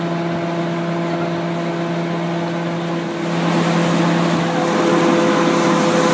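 Diesel passenger train standing at the platform with its engine running, a steady hum of several tones over a noisy bed. The noise grows louder about three seconds in.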